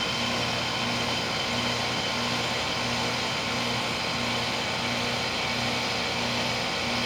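2001 Trane XE1000 5-ton heat pump outdoor unit running steadily in heat mode, its scroll compressor and condenser fan giving a constant hum with a low tone that pulses at a regular pace.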